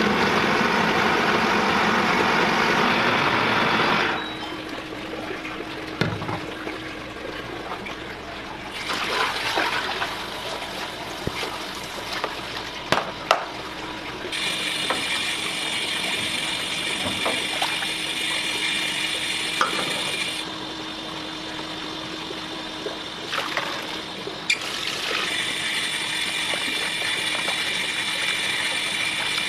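A countertop blender runs loudly for about four seconds and stops suddenly. After that, water sloshes and runs, with a few knocks, as a plastic colander is worked through a large pot of eel broth to strain it.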